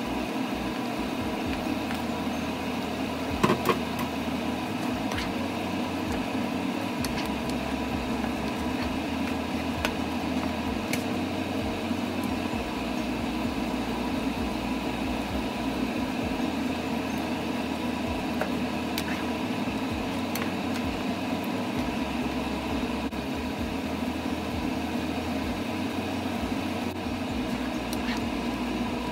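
Steady mechanical hum of a fan running, with several even tones in it, and two sharp knocks about three and a half seconds in.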